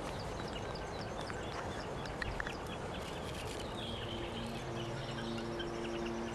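Outdoor ambience with many small birds chirping over a steady background hiss. About four seconds in, a soft film score of long held low notes comes in underneath.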